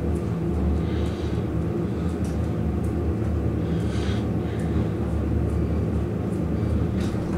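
Westinghouse hydraulic elevator car travelling with its doors shut, heard from inside the car: a steady low hum with several held low tones, and a few faint soft rattles now and then.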